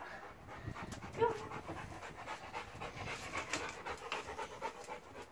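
Large black dog panting rapidly close to the microphone, with a brief high-pitched sound about a second in.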